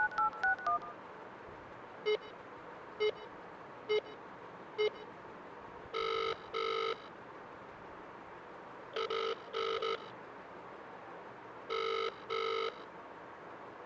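Push-button telephone: the last few keypad dialing beeps, then four short beeps about a second apart, then a double ring three times, about three seconds apart, as the dialed call rings through.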